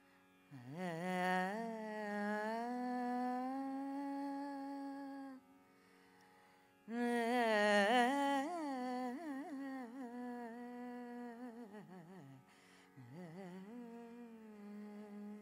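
Carnatic music: a voice hums long, wordless phrases with sliding, wavering ornaments over a steady drone. There are three phrases, with a break of about a second and a half after the first, where only the drone sounds.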